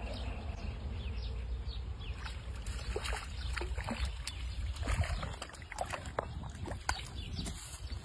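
A hooked fish thrashing and splashing at the water's surface as it is played in on a fishing pole, a run of irregular splashes that thickens from about three seconds in.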